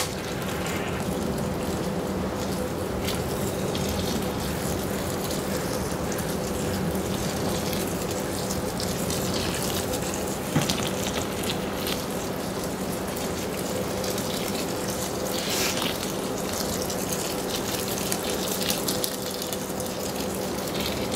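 Hot strike water running steadily from a hot liquor tank's spigot through a vinyl hose into a cooler mash tun of grain, filling it for the mash. A steady low hum sits underneath, with an occasional small click.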